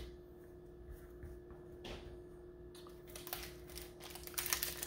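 Trading cards and a foil-wrapped booster pack being handled on a playmat: a soft tap about two seconds in, then light rustling and clicking that picks up from about three seconds in. A faint steady hum runs underneath.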